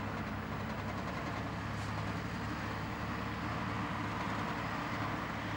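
Škoda ST 180 articulated tractor's diesel engine running steadily as it drives slowly with a disc harrow in tow.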